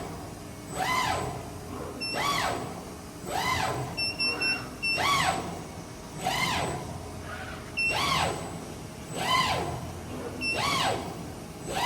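Servo motor whine of an all-electric CNC press brake, sweeping up and then down in pitch roughly every second and a half as the drives speed up and slow down through repeated strokes. Short high beeps sound in between, singly or in quick runs of two or three.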